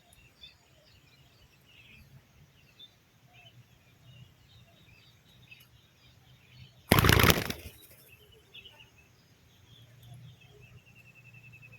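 Faint chirping of small birds, broken about seven seconds in by a short, loud flurry of wing flaps lasting under a second.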